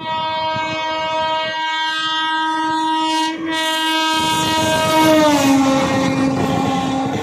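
Indian Railways locomotive's horn sounded in one long blast with a brief break partway through, its pitch dropping as the locomotive passes close by. From about four seconds in, the express's wheels rumble and clatter over the rails as the coaches go past.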